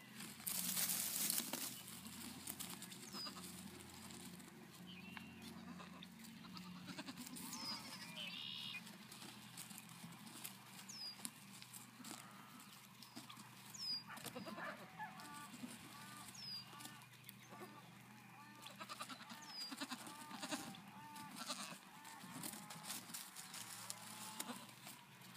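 Nigerian Dwarf goat kids bleating now and then, mostly short calls in the second half. A loud rustling noise comes about a second in.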